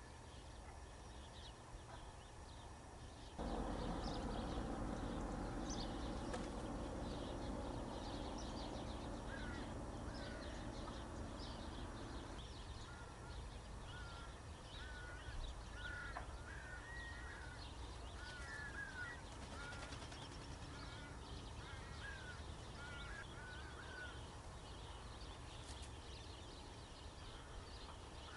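Birds calling in the open: a run of short, repeated calls through the middle, with faint higher chirping of small birds throughout. A steady rumbling noise starts suddenly a few seconds in and dies away after several seconds.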